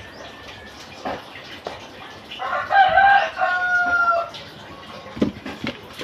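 A rooster crowing once near the middle: one call of about two seconds, its last note held long and falling slightly. A few light knocks come near the end.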